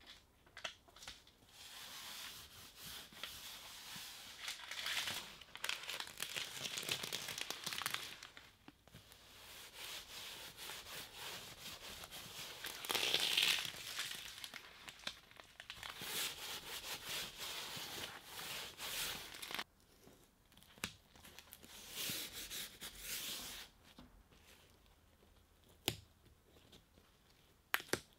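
Adhesive tape being pulled off the roll in several long pulls of a few seconds each and pressed onto a plastic vapor barrier sheet, the plastic crinkling as it is handled. A few sharp clicks come near the end.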